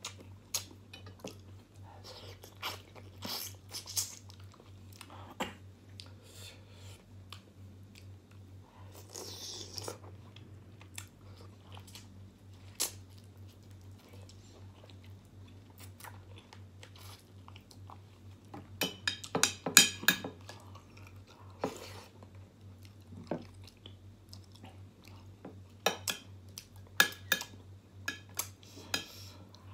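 A person chewing and biting into chicken and rice, eaten by hand, with wet mouth sounds and small crunches. Occasional light clicks of a spoon on the dish, loudest in a cluster just before the middle. A steady low hum runs underneath.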